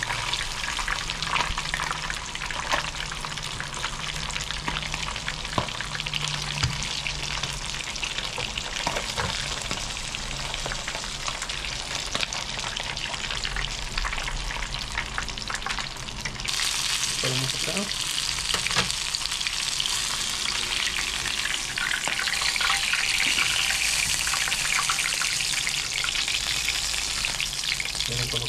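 Small whole mojarras (tilapia) frying in hot oil, a steady dense crackling sizzle. It grows louder and brighter a little past halfway through.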